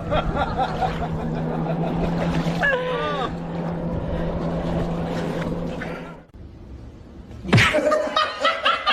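A steady motor hum that stops about six seconds in, with a short high whining glide about three seconds in; brief voice-like sounds follow near the end.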